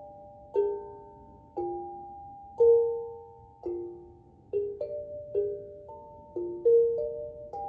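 Steel tongue drum played slowly and softly, single struck notes about once a second, each ringing out and overlapping the next in a calm, wandering melody.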